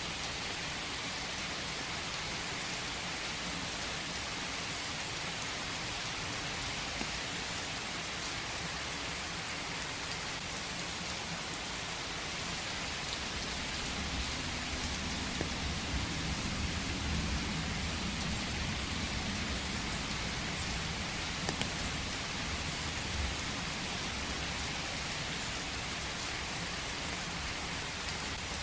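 Steady rain falling, a dense even hiss of drops. A low rumble swells and fades again around the middle.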